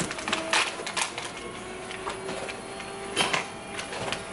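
Gloved hands handling test materials and packaging, giving irregular clicks and rustles. A faint machine whine slowly rises in pitch underneath.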